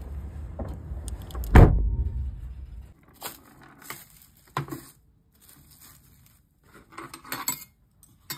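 A steady low outdoor rumble with one heavy thump about one and a half seconds in. Then, after a sudden drop in level, light crinkling and small clicks from a clear plastic bag being handled over a glass bowl, with a short cluster of them near the end.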